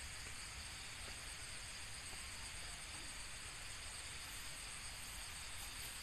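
Steady high-pitched insect chirring over a low rumbling noise.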